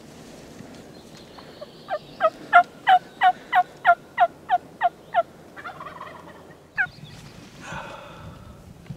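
Turkey yelping: a run of about eleven quick yelps at roughly three a second, each note falling in pitch, then one more yelp a little later.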